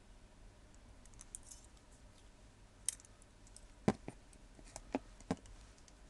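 Small metallic clicks and ticks from picking a small brass Regia padlock with a pick and tension wrench, then a handful of sharper knocks and clinks about three to five seconds in as the padlock is handled among the other brass locks.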